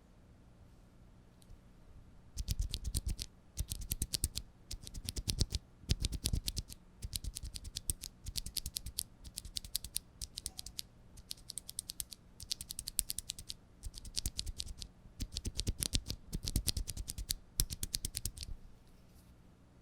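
Typing on an NK65 mechanical keyboard with Cherry MX Red linear switches, in bursts of rapid keystrokes with short pauses, starting about two seconds in.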